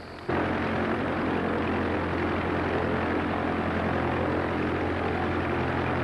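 Steady drone of a propeller-driven biplane's piston engine in flight. It cuts in abruptly just after the start and holds an even low hum with a rushing noise over it.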